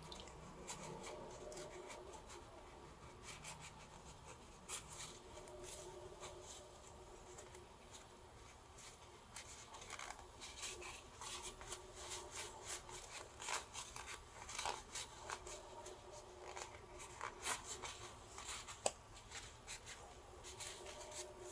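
Faint rubbing and scratching of denim fabric worked in the fingers as a small sewn denim piece is turned right side out, with a wooden stick pushing out the corners. The scratchy sounds come more often in the second half.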